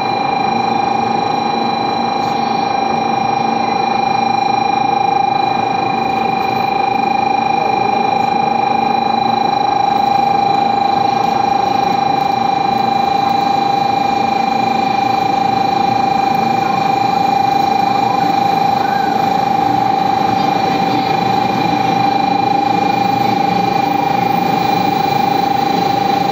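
Steady, unbroken electronic buzzer tone from a Shinkansen platform's train-approach warning, sounding while a train comes in. Near the end the train rolls in alongside the platform.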